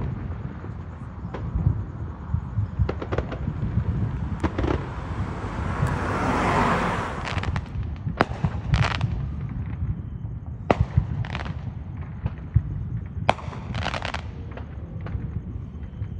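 Fireworks going off: scattered sharp bangs and pops, with a hissing crackle that swells and fades about six to seven seconds in, and short clusters of bangs later on.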